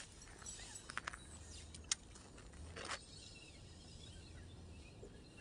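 Faint open-air ambience with thin bird chirps, plus a few light clicks between one and two seconds in and a short rustle about three seconds in.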